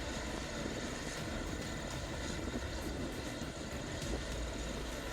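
Excavator's diesel engine running steadily under load, an even low rumble.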